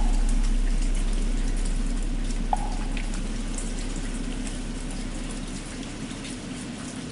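Steady rain falling, under the long low hum of a large struck bell fading slowly away. One light knock about two and a half seconds in.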